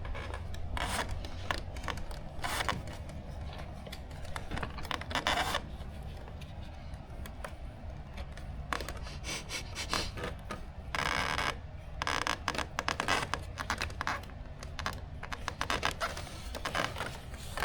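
Hands handling small model-plane parts and hardware during assembly: scattered light clicks and several short scrapes and rubs, over a steady low hum.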